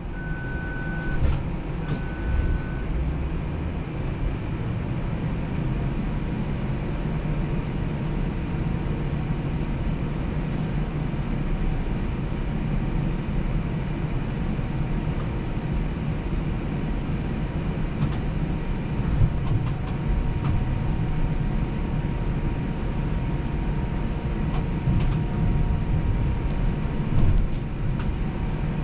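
Toronto streetcar, heard from inside, with a steady low rumble of the ride along the track and faint steady tones. Two short beeps at the same pitch sound in the first few seconds, and a few light clicks come later.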